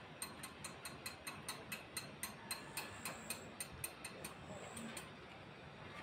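Steady mechanical clicking, about four clicks a second, slowing slightly and stopping about four seconds in.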